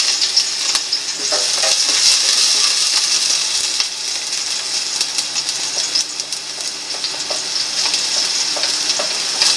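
Minced garlic sizzling in hot oil in a stainless steel pan: a steady, loud frying hiss, with a few faint clicks.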